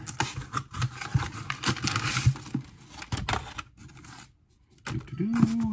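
Cardboard shipping box being pulled and torn open by hand: a quick run of scraping, tearing and crackling as the flaps come apart, stopping about three and a half seconds in.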